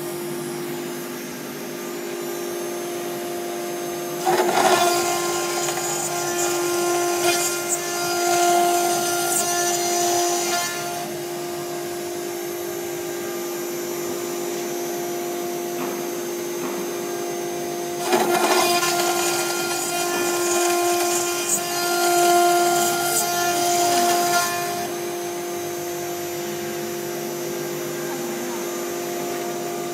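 OMNI 1212 CNC router milling a metal plate: the spindle runs with a steady whine while the end mill cuts. The cutting noise grows louder and harsher twice, about four and eighteen seconds in, for six or seven seconds each, then falls back to the steady spindle whine.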